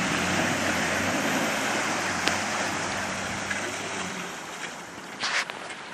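Steady rushing noise of the flooded river, slowly fading, with a low vehicle engine hum beneath it that drops out about four seconds in. A short sharp noise sounds near the end.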